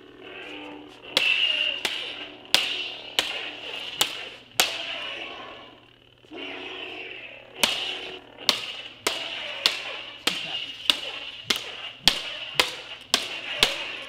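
Polycarbonate lightsaber blades clashing hard, blade on blade, in a heavy duel. About six sharp hits come in the first few seconds, then a short pause, then a faster run of about a dozen more, roughly two a second.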